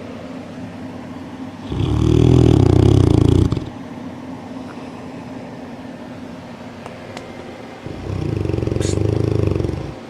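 French Mastiff (Dogue de Bordeaux) snoring loudly in its sleep: two long snores of about two seconds each, some six seconds apart, with quieter breathing between.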